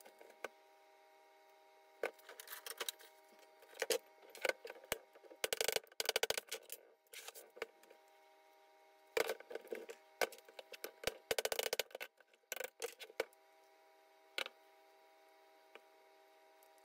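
Metal clicks, knocks and short rattles of a Denso smog pump's housing and parts being handled and taken apart by hand, with two brief runs of fast, even ticking, over a faint steady hum.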